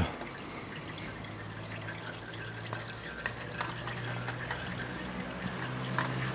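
Faint small clicks and taps of a hand seating a new CVT oil-cooler filter into its housing, over a steady low hum.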